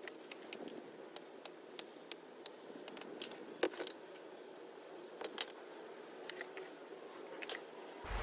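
Light scattered clicks and scrapes of loose Petrobond sand being worked and brushed off the top of a steel moulding flask, over a steady low hum.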